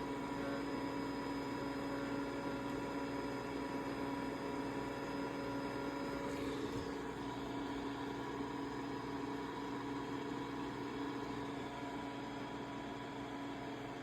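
Dreame L10s Ultra robot vacuum running with a steady whirring hum as it heads back to its dock. About six and a half seconds in, a high tone drops out and the hum changes slightly.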